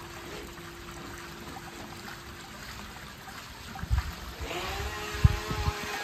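Force1 Velocity H102 RC boat's electric motor humming faintly at low throttle over trickling water. About four and a half seconds in, the motor's whine rises in pitch and holds high as the throttle opens, with a few dull thumps near the end.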